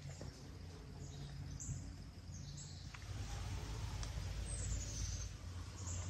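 A crash out in the woods, heard at a distance, with faint bird chirps. A low rumbling noise builds about halfway through.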